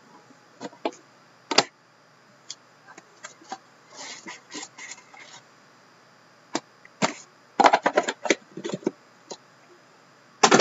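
Handling of a cardboard trading-card box and a hard plastic card case: scattered clicks, taps and short rustles as the box is opened and the cased card is slid out. There is a quick run of clicks and knocks about three quarters of the way through, and a sharp knock near the end as the case is set down on the table.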